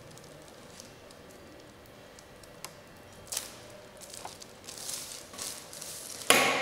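Gloved hands handling a braided black cable: soft rubbing and scattered small clicks, a sharper click about halfway through, rustling in the last couple of seconds, then a sudden loud knock near the end that dies away.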